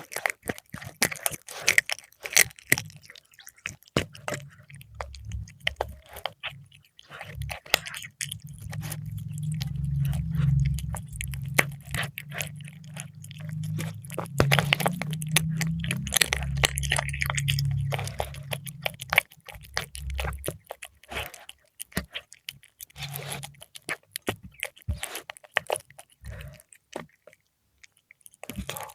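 Cat chewing and crunching fried milkfish: dense, irregular wet crunches and bites, close up. A low steady rumble sits beneath the chewing from about four seconds in until about two-thirds of the way through.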